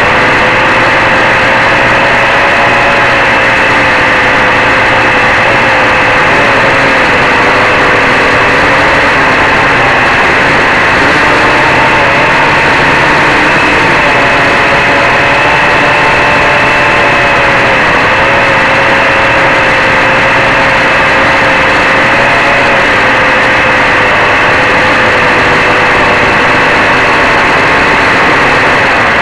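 H-frame quadcopter's four DT750 brushless motors spinning 11x4.7 propellers in flight, a loud, steady drone heard right next to the motors on the quad's own camera, its pitch wavering slightly up and down.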